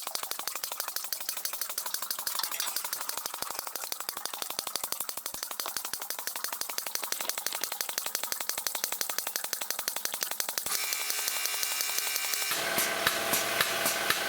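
Air-driven oil extractor pump running, a fast even rattle of clicks as it sucks engine oil out through the oil pan's drain fitting. Near the end the sound changes and gets louder.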